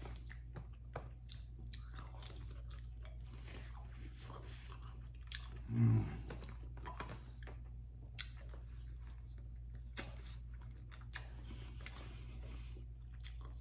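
Close-up chewing and biting of bone-in chicken wings, with scattered small crunches and clicks as the meat is stripped off the bones. A brief low sound about six seconds in.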